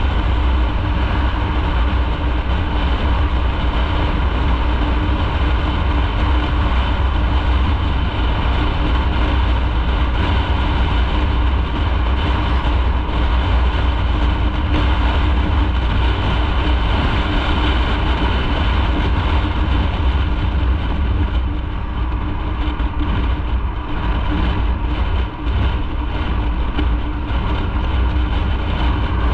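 Motorcycle engine running steadily under way, with heavy wind rumble on the microphone; it eases off slightly about two-thirds of the way through.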